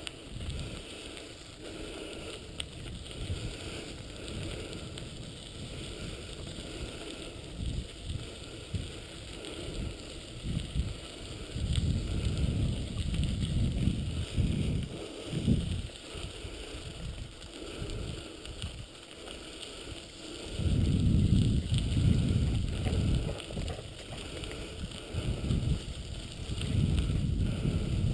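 Wheels of a dog-pulled rig rolling over a gravel road at running pace, with a low rumble on the microphone that swells several times, loudest around the middle and near the end.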